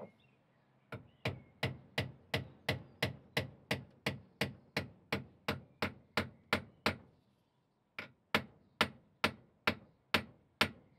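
Light hammer taps on the end of a scythe nib iron's tang, peening it over into a head on top of the wooden nib (clinching over), at a steady rate of about three a second. The tapping stops for about a second near the seven-second mark, then starts again.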